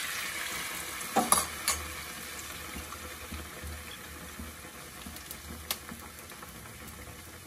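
Besan-batter-coated stuffed bread slice sizzling in hot oil in a steel pot, the sizzle loudest just after it goes in and slowly dying down. A couple of sharp metal clinks a little over a second in.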